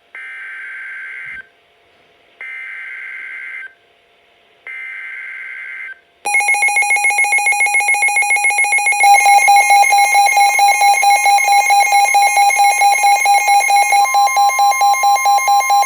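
Three Emergency Alert System data bursts, each a buzzy digital screech of about a second, followed at about six seconds in by a loud, rapidly pulsing EAS alert tone. The alert tone's pitch mix changes twice, about three and eight seconds after it starts. The bursts and tone signal the start of a new alert.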